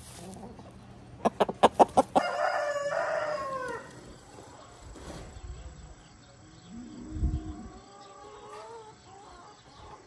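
A rooster close to the microphone: a quick run of sharp taps from its pecking, then one loud crow of about a second and a half that falls in pitch at its end. A dull thump comes about seven seconds in, and faint calls follow near the end.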